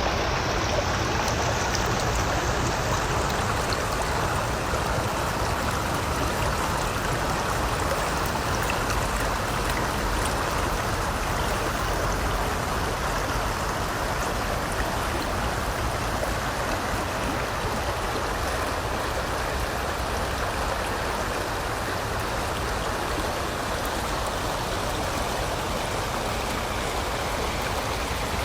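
River water rushing steadily around rocks, an even, unbroken noise of flowing water.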